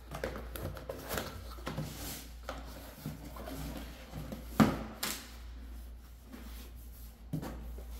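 Cardboard boxes being handled: a boxed set slid and scraped against a corrugated shipping carton, with rubbing and several light knocks and one sharp knock about halfway through.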